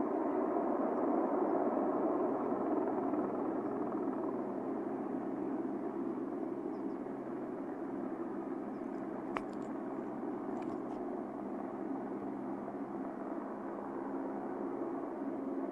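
Distant helicopter hovering, a steady rotor and engine hum that eases slightly over the first few seconds. A single sharp click sounds about nine seconds in.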